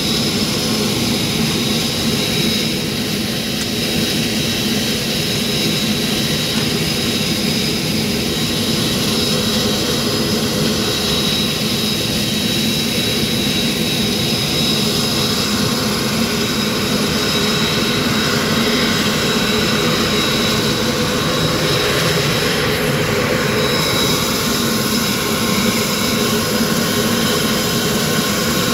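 Saab 340 turboprop's General Electric CT7 turbine engines running steadily, a continuous high turbine whine over a low engine drone.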